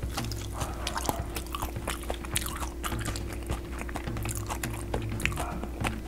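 Close-miked chewing of a deep-fried cube of acorn jelly (dotorimuk), with many small, sharp crunching clicks throughout.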